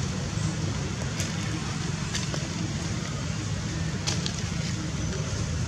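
Steady outdoor background rumble and hiss, with a few faint clicks.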